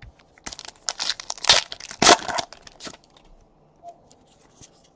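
Card pack wrapper crinkling and tearing as it is opened, in a run of rustling bursts loudest in the first half, then a few small ticks.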